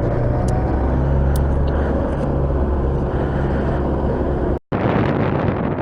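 Motorcycle engine running at a steady pace, with wind rushing over the helmet microphone. About four and a half seconds in, the sound drops out for an instant, then returns as mostly wind buffeting.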